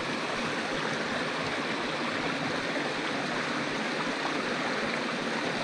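A small mountain trout creek running, a steady, even rush of water.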